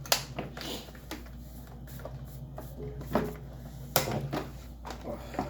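Plastic clicks and knocks from an electric fan's housing as its retaining clips are pried loose, coming irregularly throughout.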